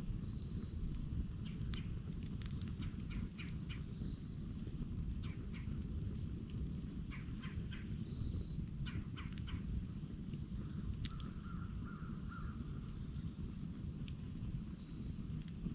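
Campfire crackling, with scattered sharp pops and snaps over a steady low rumble. About two-thirds of the way through, a faint bird call of a few short notes sounds in the background.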